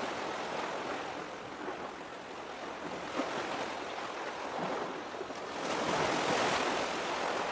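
Waves washing on the shore, a steady rush of water that swells louder about six seconds in.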